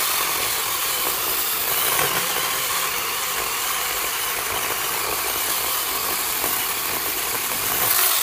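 Zeeksaw battery-powered mini chainsaw running and cutting through wood with its sharp chain: a loud, steady buzz that starts abruptly and holds level throughout.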